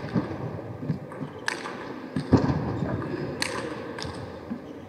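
A few sharp, scattered clicks of a celluloid table tennis ball being bounced before a serve, with a duller thump about two seconds in, over quiet arena ambience.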